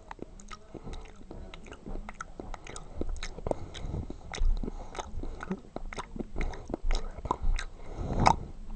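A person chewing loudly with the mouth open, close to the microphone: irregular wet smacks and clicks throughout, with a louder burst near the end.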